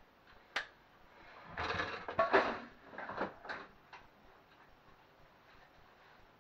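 Handling noise at an air fryer's pulled-out basket: a sharp click, then a second or so of scraping and knocking, as when cooked burgers are lifted out, followed by a few lighter clicks before it goes quiet.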